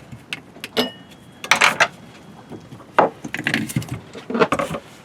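Irregular knocks, taps and clinks of hand tools and a coconut being handled and worked on a hard surface, coming in short clusters with no motor running.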